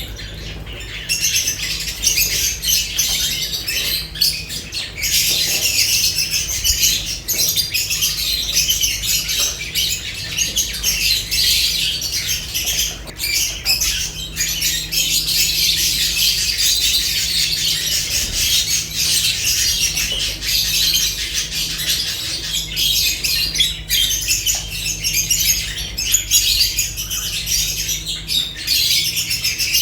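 Lovebirds chattering and squawking without pause, a dense high-pitched twittering of many birds at once, over a faint steady low hum.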